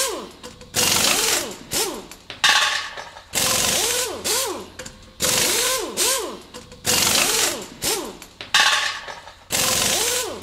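Cordless power driver run in short bursts, whirring up and down in pitch as it spins the clutch cover bolts out, about one burst a second with short pauses between.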